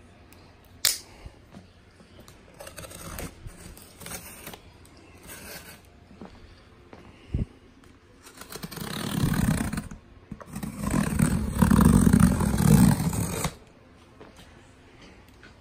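Folding pocket knife slicing through packing tape on a cardboard box: two long cuts, starting about eight and eleven seconds in, after a few light clicks and taps, with a sharp click about a second in.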